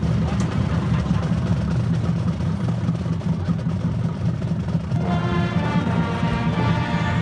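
School band playing: a low, steady drum rumble, then about five seconds in the brass and woodwinds come in with held chords.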